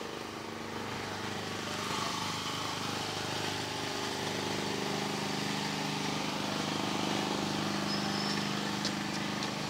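A steady low mechanical drone of an engine or motor running, growing a little louder about two seconds in and then holding level.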